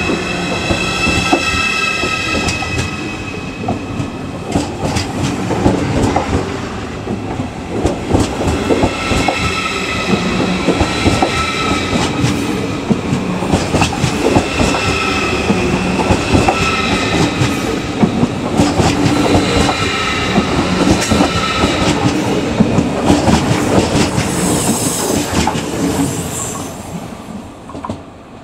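ICE 4 (class 412) electric train rolling past close by. Its wheels click over the rail joints while high whining, squealing tones rise and fade in waves. The sound dies away near the end.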